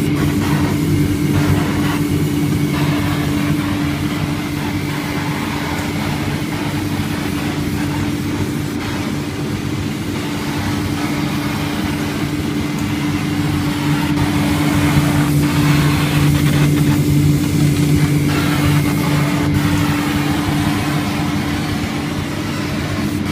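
Galvo CO2 laser engraving machine running as it marks an MDF panel: a loud, steady machine hum with one strong low tone, over a hiss of moving air.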